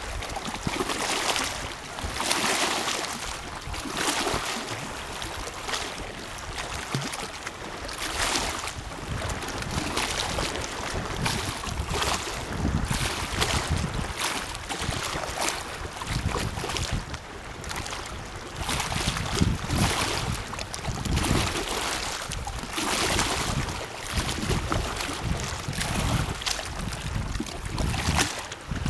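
Small lake waves lapping and splashing in irregular surges every second or two, with wind rumbling on the microphone.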